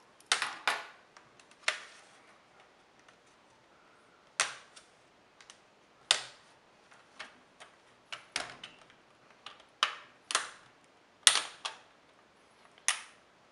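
The plastic screen bezel of an ASUS U31JG laptop being pried off, its clips snapping loose in a series of sharp, irregular clicks, about a dozen in all, some in quick pairs.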